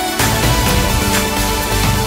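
Background electronic music with a steady beat, about two beats a second, over sustained notes.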